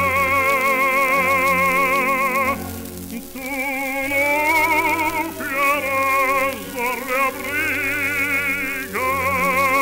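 Baritone voice singing a Latin-American serenade with wide vibrato over orchestral accompaniment, played from an old electrically recorded 78 rpm gramophone disc. The sound is narrow and dull, with surface hiss above, and the singing breaks briefly about three seconds in.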